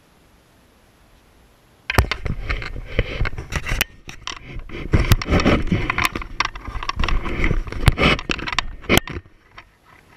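Close-up handling noise of plastic interior trim at the van's roof: irregular scraping and rubbing with sharp knocks and clicks, starting suddenly about two seconds in and stopping shortly before the end.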